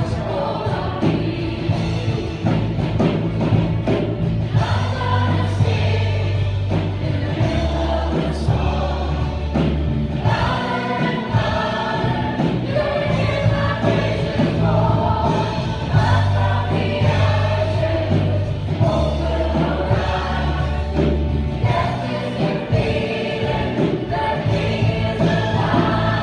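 A worship band playing a gospel song: a woman singing lead into a microphone over electric bass and strummed acoustic guitar, the bass holding long low notes that change every few seconds.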